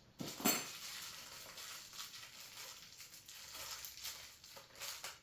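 A small metal clink about half a second in, then faint scraping and light knocks as a door latch is handled and slid into the edge of the door.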